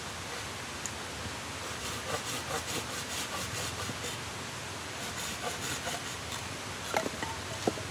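Small hand saw cutting into a wooden pole in quick back-and-forth strokes, about four or five a second, pausing briefly partway. Two sharp knocks near the end.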